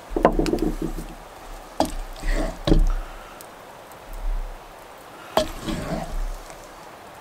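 Wooden spoon knocking on a cast-iron Dutch oven and a plate as thick meat stew is scooped out and served, with wet, sloppy plops of stew. There are four sharp knocks, spaced out over several seconds.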